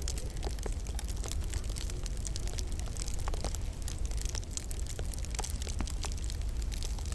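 Wood fire crackling in a log burner: irregular small sharp pops and snaps, several a second, over a steady low rumble.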